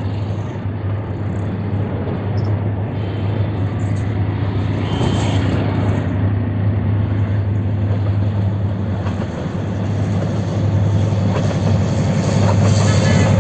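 Diesel locomotive hauling a passenger train as it approaches, its engine giving a steady low drone that grows louder toward the end.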